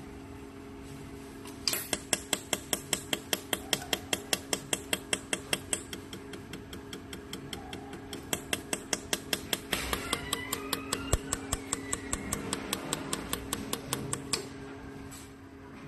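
Jewelry laser welder firing in pulses: a rapid train of sharp snaps, about six a second, starting about two seconds in, weakening for a couple of seconds midway, then resuming and stopping shortly before the end. A steady machine hum runs underneath.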